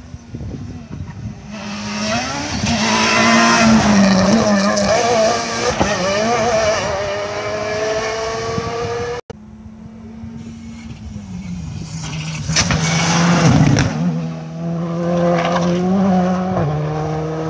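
Rally car engine at full throttle on a tarmac special stage, revving high and stepping through gear changes as the car approaches. The engine sound rises to a peak, breaks off briefly about nine seconds in, then rises and falls again.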